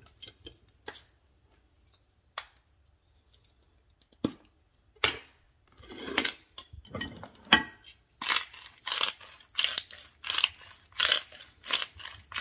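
Sea salt grinder being twisted: a run of gritty crunching grinds, about two a second, from about eight seconds in, after a few light scattered clicks.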